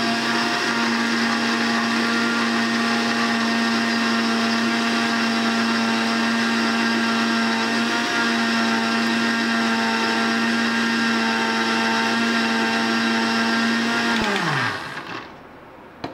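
Electric mixer grinder running steadily at full speed, grinding dry biscuits into powder in its steel jar. Near the end it is switched off and winds down with a falling pitch.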